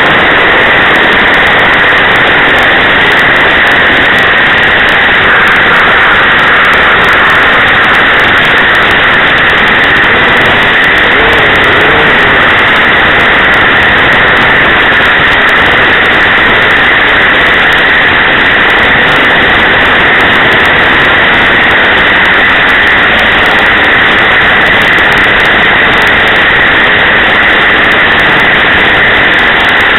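O.S. 49-PI Wankel rotary engine of an RC model plane running steadily. It is picked up by a camera mounted on the plane right beside it, so it comes through as a loud, even, harsh noise.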